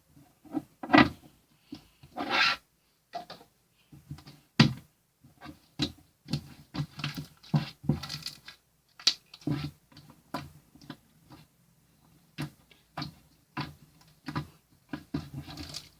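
Irregular rubbing and scratching: a string of short scrapes and knocks at uneven intervals.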